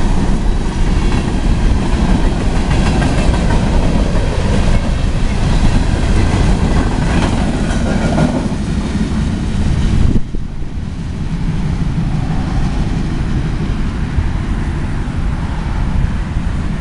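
CSX coal train's gondola cars rolling past, wheels clacking over the rail joints. The sound drops off sharply about ten seconds in as the end of the train goes by, leaving a lower fading rumble.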